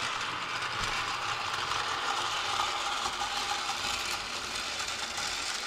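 Motorized toy train running along its track, its small motor and gears making a steady whir.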